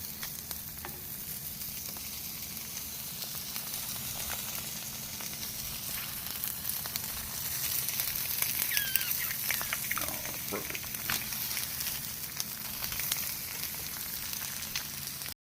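Eggs frying in a pan, a steady sizzle with constant small crackles and pops. A few short squeaky scrapes come about nine to ten seconds in, and the sizzle cuts off suddenly near the end.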